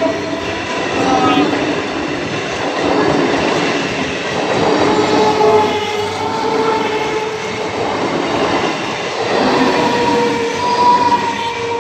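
EMU local train coaches rolling slowly past at close range: a steady rumble and clatter of wheels on rail, with drawn-out whining tones that drift slightly in pitch.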